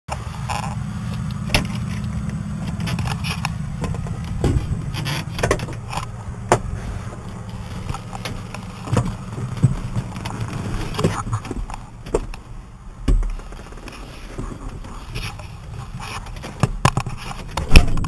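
Case IH Magnum 305 tractor's diesel engine running with a steady low hum, under a string of knocks and clatters as someone climbs the steps into the cab and handles the rail and door, with a loud knock near the end.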